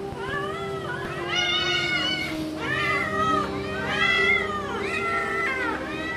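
Hungry domestic village cat meowing over and over in quick succession, with long, rising-and-falling calls, typical of a cat begging for food.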